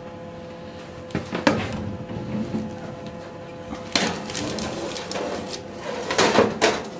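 Metal baking tray being slid onto an oven's wire rack: two sharp knocks about a second in, then scraping and clattering of metal on metal over the last three seconds, over a steady hum.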